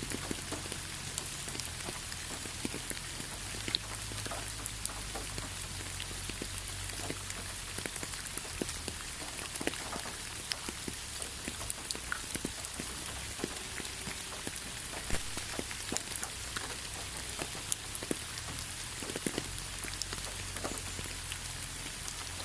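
Steady rain falling, an even hiss with many separate drops pattering and ticking on surfaces.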